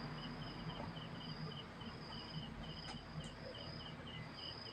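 Faint insect chirping: a high note pulsing about three times a second, with a steadier, higher note alongside.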